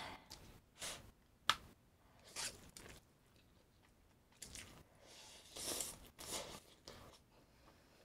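Close-miked eating: a string of irregular crunchy bites and chews, with one sharp click about a second and a half in.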